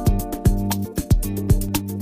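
Background music with a steady beat: held notes over drum hits about twice a second.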